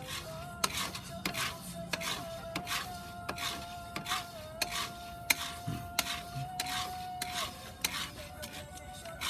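Wooden spoon scraping and stirring coffee beans in a round cast-iron pot during hand roasting. The beans rattle and rasp in regular strokes, about three every two seconds.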